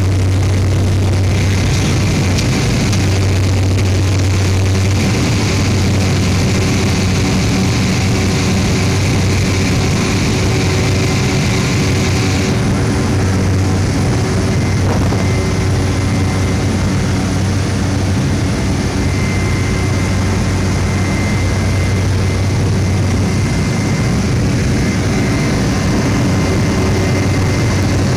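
Single PT6A turboprop engine and propeller of a Cessna 208 Grand Caravan at takeoff power, heard inside the cabin through the takeoff roll and climb-out: a loud steady drone over a deep propeller hum. A higher rushing hiss drops away about halfway through.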